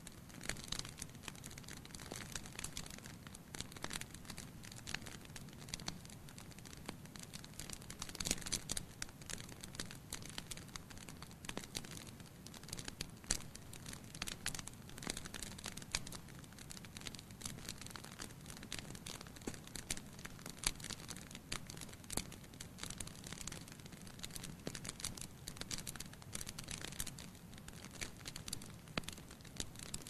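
Firewood logs burning in a fireplace, crackling with a dense run of irregular pops and snaps over the low steady rush of the flames, with a few louder pops about 8, 13 and 21 seconds in.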